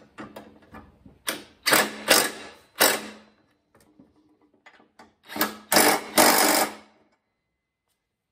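Cordless impact tool tightening the mower blade bolts onto the deck spindles: a motor whirr breaking into several short bursts of rapid hammering, in two groups a few seconds apart.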